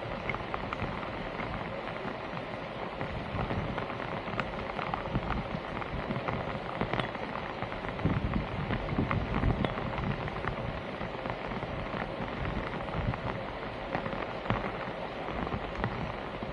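Water splashing and trickling, with scattered small clicks and knocks, and heavier splashing about eight to ten seconds in.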